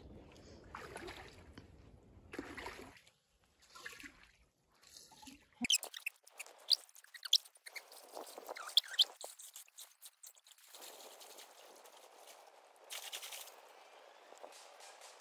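A person wading into a river, water splashing and sloshing around his legs. A cluster of sharp splashes comes about halfway through, then a steadier swish of moving water.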